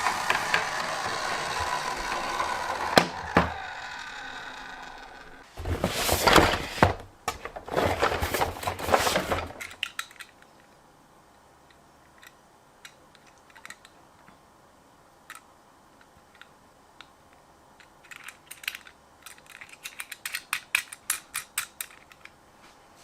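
A toy minicar's electronic sound effect fading out. It is followed by a few seconds of loud rattling and whirring from plastic toy vehicles being handled and run. After that come scattered light plastic clicks, thickest near the end.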